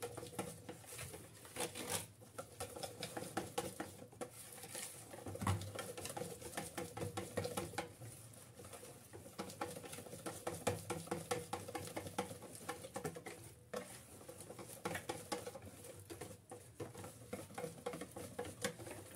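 Wire balloon whisk beating thick chocolate cake batter in a plastic bowl: fast, steady strokes of wet slapping and the wires tapping the bowl's sides, with a few brief pauses.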